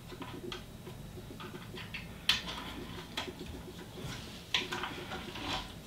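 Scattered light clicks and taps of a rubber timing belt being fed through an Ender 3 Pro 3D printer's Y-axis and around its pulley by hand, with a few sharper clicks among them.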